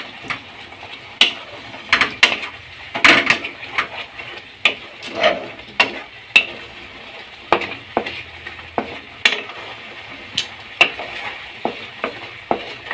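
Wooden spatula stirring thick papaya and mango chutney as it fries in a kadai: irregular knocks and scrapes against the pan over a faint sizzle.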